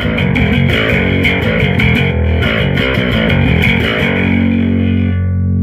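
Custom electric bass guitar on its humbucker pickup, played through a bass cabinet: a quick run of notes, then a low note held and left ringing from about four seconds in.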